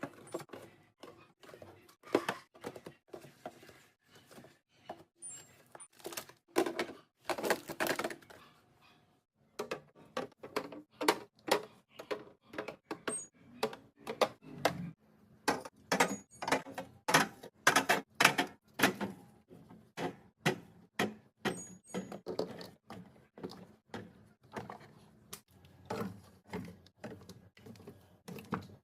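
Irregular clacks and thunks of plastic and glass containers being set down and slid into place on refrigerator shelves and in organizer bins, a steady run of separate knocks with a short pause about nine seconds in.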